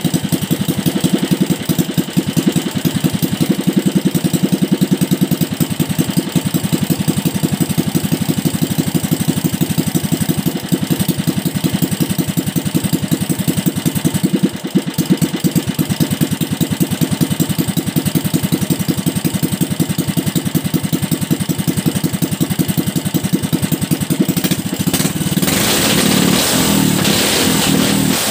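Motoyama single-cylinder OHV petrol engine running with a fast, even firing beat while its carburettor is being adjusted. It dips briefly in level about halfway through, then about 25 seconds in it revs up and holds at a higher, smoother speed.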